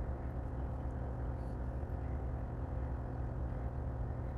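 Steady low hum of a running motor, even and unchanging throughout.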